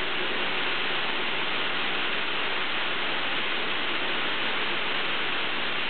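High-pressure water jets of a turf-washing machine spraying steadily, an unbroken rush of water.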